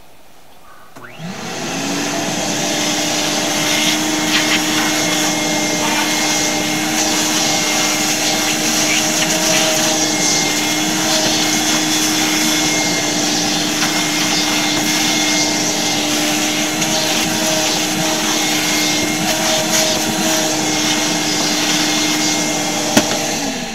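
Shop vacuum switched on, its motor spinning up about a second in and then running steadily as the hose sucks dust off the deck; near the end it is switched off and winds down.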